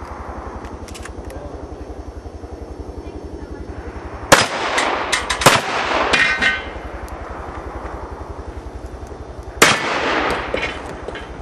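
Shotgun firing 00 buckshot: two loud shots about five seconds apart, the first followed by a run of sharp clanks and a brief metallic ring.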